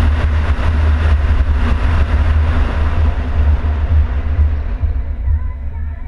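Wind rumble and road noise on a car-mounted camera while driving. The hiss thins and the level falls over the last couple of seconds as the car slows.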